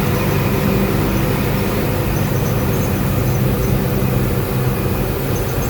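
Marcopolo Sênior Midi bus on an Agrale MA 15.0 chassis running at a steady speed, heard from inside the cabin: a steady low diesel drone with the differential roaring very loud.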